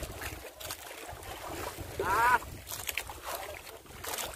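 Sea water splashing and slapping against a small bamboo-outrigger boat, with wind on the microphone. About two seconds in comes a short, loud call from a voice.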